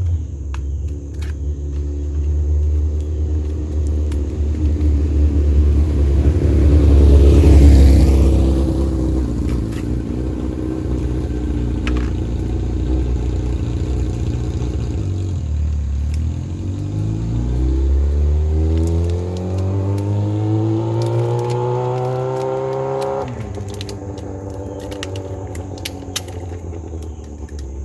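Motor vehicles running: one passes close and loud about eight seconds in, then an engine revs up with a steadily rising note for several seconds before it drops off suddenly.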